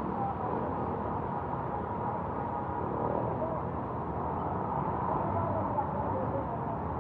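Steady outdoor street noise with faint distant voices, without any single loud event.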